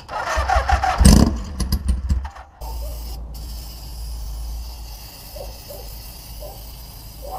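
Old cafe-racer motorcycle engine cranked over in a rough burst of about two seconds without starting, its cylinders holding water. Then comes a steady hiss of an aerosol can sprayed at the engine for about five seconds.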